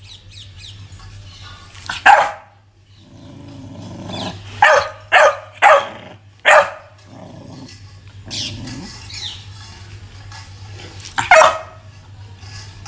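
Young American Pit Bull Terrier barking in about six short, sharp barks, with low growling in between. He is agitated and riled up over his food.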